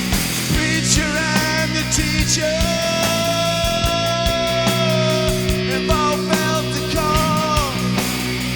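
Rock music with drums and guitars and a melody line that holds one long note in the middle.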